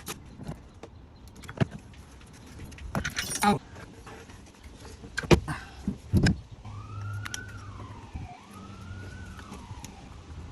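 Sharp metallic clinks and a short rattling clatter of hand tools and loose engine parts. Then a wail rises and falls twice, each cycle about two seconds long, typical of a distant siren.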